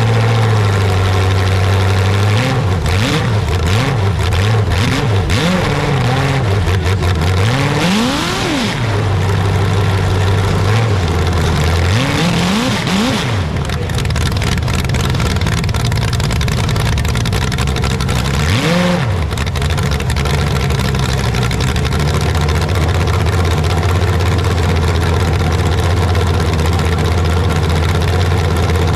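A loud engine running steadily, with several quick revs that rise and fall in pitch.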